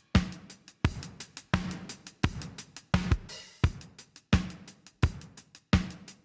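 Drum kit loop played through the Brainworx bx_console AMEK 9099 console channel-strip plugin: a steady beat of heavy drum hits about every 0.7 s, with hi-hat ticks between them.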